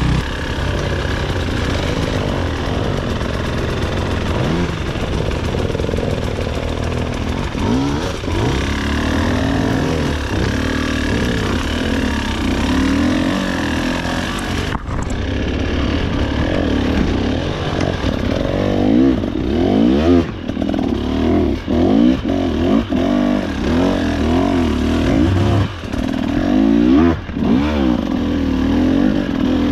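Two-stroke enduro dirt bike engine running and revving up and down under the throttle, with quicker, sharper blips in the second half.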